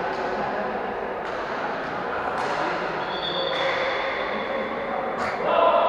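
Futsal game sounds in an echoing sports hall: players' voices calling out, sneakers squeaking on the court and a few sharp ball-kick thuds.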